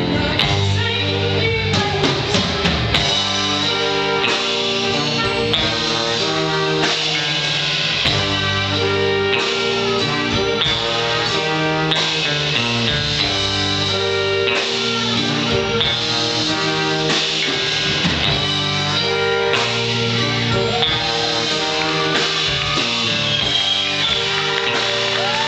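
Live band playing an instrumental passage, guitar over a steady drum beat with held chords changing every second or so.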